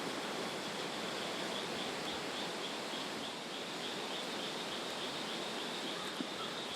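Rural outdoor ambience: a steady even hiss of background noise with a faint, rapidly repeated high chirping running through it.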